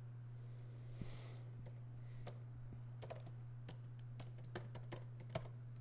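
Faint, irregular typing on a laptop keyboard, scattered single key clicks over a steady low hum.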